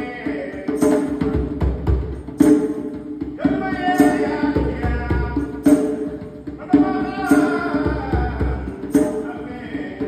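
Djembe played with bare hands in a steady beat, the loudest strokes coming about every second and a half. A voice sings over the drum in two long phrases, one in the middle and one in the second half.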